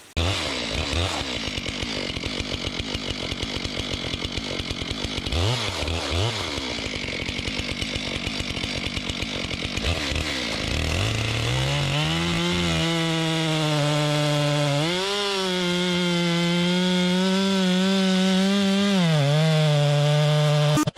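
Chainsaw cutting through wood: the chain's noise fills the first half with an uneven, pulsing engine note. About eleven seconds in, the engine note rises and holds at a high, steady pitch, with a couple of brief dips and rises.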